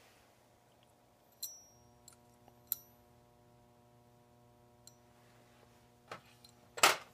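A few light metallic clinks as a brass Coleman lantern pump assembly is handled, then a louder clatter near the end as it is set down among metal parts in a stainless tray. A steady low hum runs underneath.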